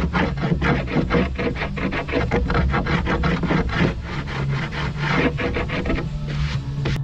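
Rasping strokes on wood in a quick, even rhythm, about four or five a second.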